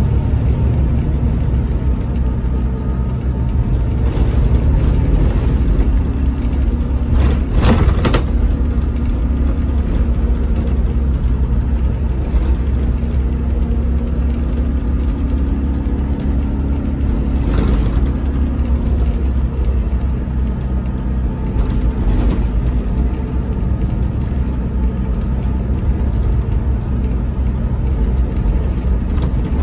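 Volvo B11RT coach's 11-litre six-cylinder diesel running as the coach drives, heard inside the passenger cabin as a steady low drone. A few short knocks or rattles come through, the sharpest about seven and a half seconds in.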